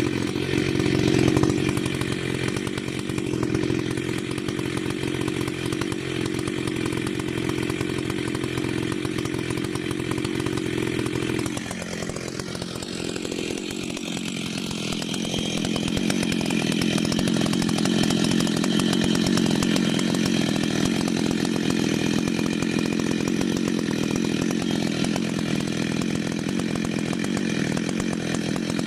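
Ported Stihl MS 880 chainsaw with a custom dual-port muffler running hard at high revs. About twelve seconds in, the revs drop sharply and then climb back up, and the saw holds high revs again to the end.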